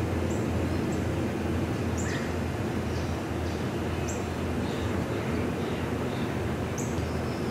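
Steady low drone of a pair of C-130J-30 Super Hercules four-engine turboprops in flight, with several short high bird chirps over it.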